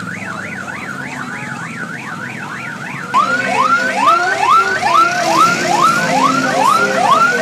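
Electronic sirens on decorated parade road trains: a fast up-and-down warble, then, about three seconds in, a louder siren of repeated rising whoops, about two a second, over a low steady hum.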